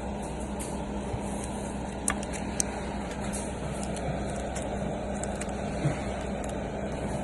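Steady low electrical hum and background noise, with a few short, sharp clicks: about two seconds in, again half a second later, and near six seconds.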